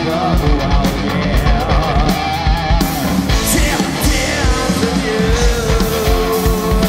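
Live prog rock band playing loud: electric guitars, bass and a drum kit keeping a steady driving beat, with a wavering lead line early on and a long held note near the end.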